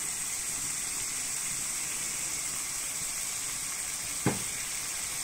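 Sambal and chopped chai po (preserved radish) frying in oil in a pan: a steady sizzle. One sharp knock about four seconds in.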